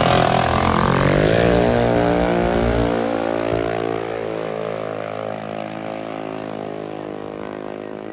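Junior dragster engine at full throttle, pulling away down the drag strip after launching, its pitch falling slightly as the sound steadily fades.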